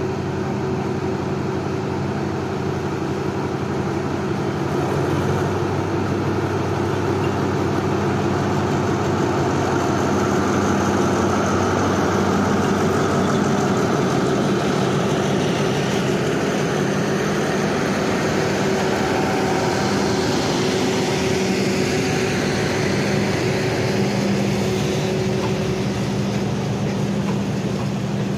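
Alsthom diesel-electric locomotive running with a steady low engine drone as it hauls a passenger train slowly past. In the latter part, the rushing hiss of the passing coaches rolling by grows stronger.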